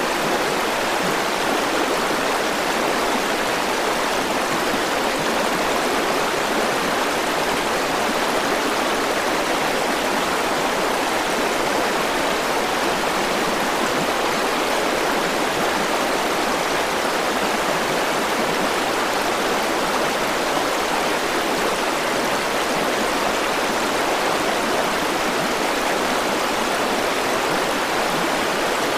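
River water rushing and burbling over rocks, a steady unbroken flow.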